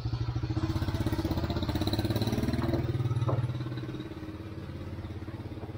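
A small motorbike engine running close by with a steady pulsing note, which fades away about three and a half seconds in.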